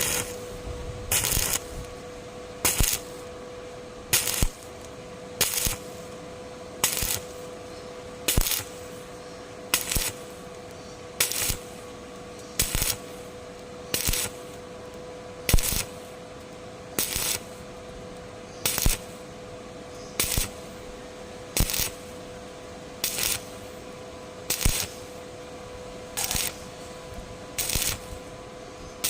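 Arc welding done in short, evenly timed bursts, a brief crackle about every second and a half, over a steady hum.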